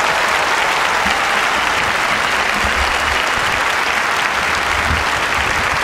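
Loud, steady rush of wind over the camera's microphone and skis hissing on the snow during a fast downhill ski run, with irregular low buffeting thuds from the wind.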